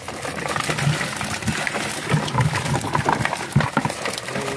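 Live tilapia thrashing inside a wire-mesh fish trap as it is hauled into a boat, a dense irregular clatter and rattle of fish slapping against the mesh and frame.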